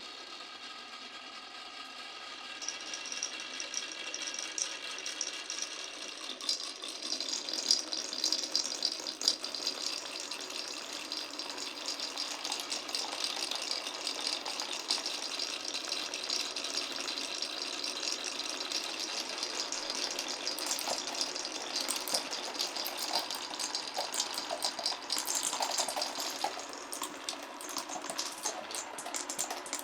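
Marbles rolling and clattering down a wooden marble run: a continuous rattle of many small clicks that grows louder and busier a few seconds in, with sharper separate clicks near the end.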